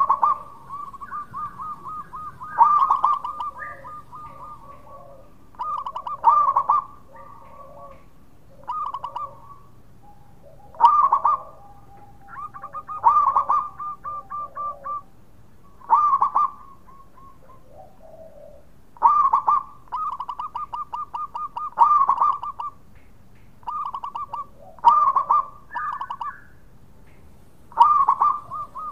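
Zebra dove (perkutut) cooing: each phrase is a strong opening note followed by a quick run of short staccato coos. The phrases repeat every two to three seconds.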